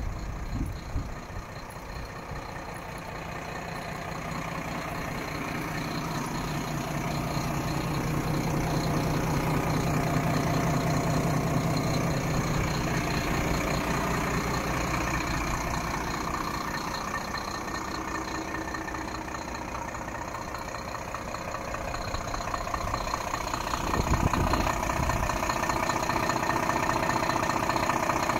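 Volvo FM 11.370's 11-litre six-cylinder diesel engine idling steadily. It gets louder about three-quarters of the way through.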